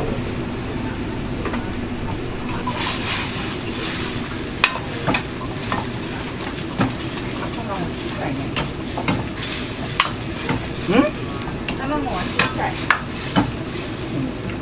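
Sliced vegetables and bean sprouts sizzling in a carbon-steel wok over a gas burner while a metal ladle stirs them. From about four seconds in, the ladle knocks and scrapes against the wok at irregular intervals.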